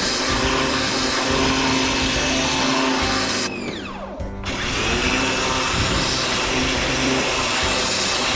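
An electric motor running with a loud, steady hissing rush and hum. About three and a half seconds in it cuts out and winds down with a falling whine, then starts up again about a second later.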